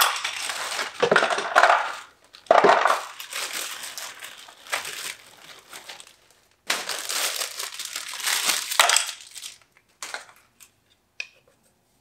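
Clear plastic packaging bag crinkling and rustling as it is handled, in three long bouts, then a few light clicks from small plastic parts near the end.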